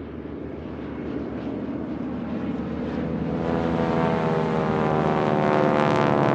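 Propeller aircraft engine droning steadily and growing louder as the plane approaches.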